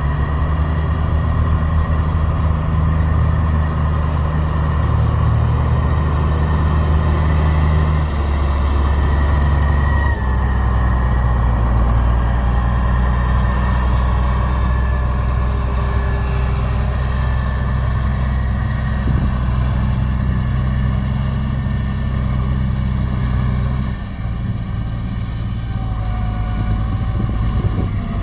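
Heavy diesel engine of a road construction machine running steadily under work. Its note shifts about a third of the way in, and it drops in loudness near the end.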